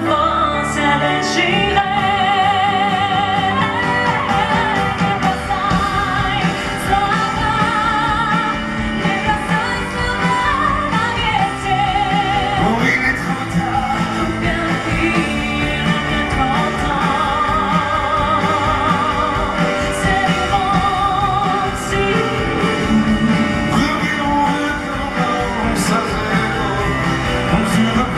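Live pop duet performance: singing with strong vibrato over a full band accompaniment, continuous and loud.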